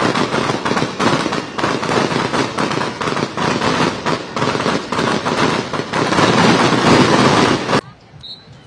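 Large crowd cheering and applauding, with many sharp crackling pops mixed in, like firecrackers going off. The sound cuts off suddenly about a second before the end.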